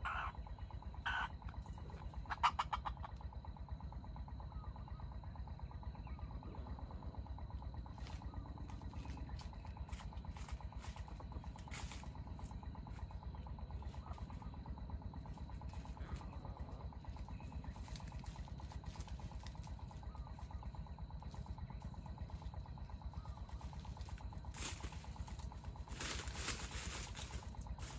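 A few short clucks from a wild junglefowl in the first three seconds. Then a low outdoor rumble, a thin steady high whine and scattered rustles and clicks, with a longer rustling burst near the end.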